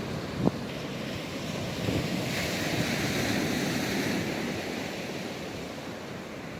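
Sea waves washing onto the beach, one wave swelling about two seconds in and fading away, with wind buffeting the microphone. A single brief knock about half a second in.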